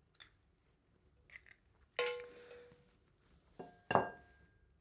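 Eggshell knocked against the rim of a ceramic bowl: a sharp tap with a short ring about two seconds in, then two more taps close together near the end.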